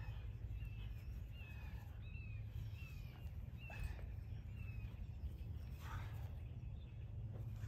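A steady low rumble outdoors with a bird chirping over it: short falling chirps about twice a second for a few seconds in the first half. A few faint scuffs come from a dog tugging on a toy.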